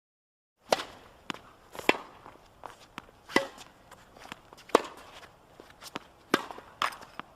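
Footsteps on a tennis court: after a short silence, a string of sharp steps starts, about two a second, some much louder than others.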